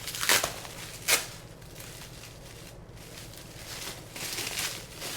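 Packing material being handled and unwrapped by hand: crinkling and rustling, with two sharp crackles in the first second or so and softer rustles near the end.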